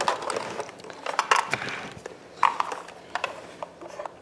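Plastic clicks and knocks from a toy sewing machine being handled and its parts moved, with a couple of louder clunks a little over a second in and about two and a half seconds in.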